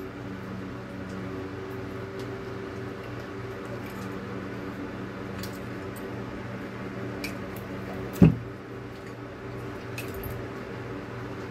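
The parts of a disassembled water pressure pump are being handled: the plastic motor half with its impeller is separated from the wet pump housing, with a few light clicks and one sharp knock about eight seconds in as a part is set down on the table. A steady low hum lies underneath.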